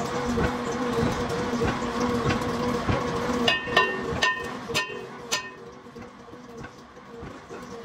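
Hammer blows on a cast-iron truck brake drum clamped in a lathe chuck: about five sharp, ringing metallic strikes in quick succession around the middle, after a steady low hum with scattered lighter knocks.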